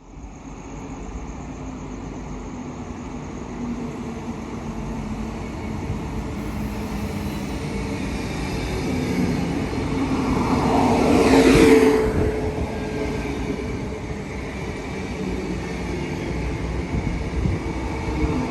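A train running past: a steady rumble that builds, peaks in a brief loud swell about twelve seconds in, eases off, then grows again near the end.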